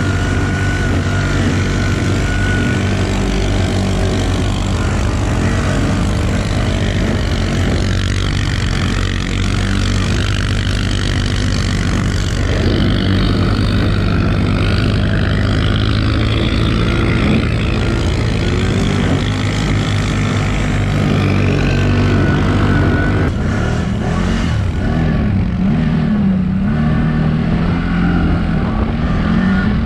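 CFMOTO ATV on Camso snow tracks, engine running under steady throttle with the hiss and rumble of the tracks; the engine note wavers up and down in the last few seconds as the throttle changes.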